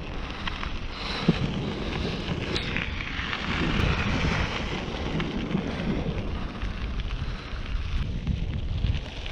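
Wind buffeting the microphone over the low rumble of a mountain bike's knobby tyres rolling on a dirt road, with scattered small clicks and rattles from the bike and gravel.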